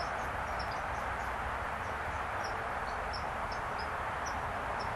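Small birds chirping, short high peeps coming several times a second, over a steady outdoor background hiss.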